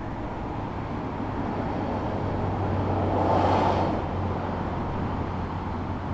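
Steady outdoor background rumble with a low hum, swelling into a brief louder rush of noise about three seconds in before settling back.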